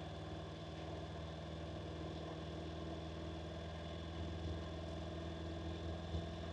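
Honda NC750X's parallel-twin engine idling steadily, with one brief light knock near the end.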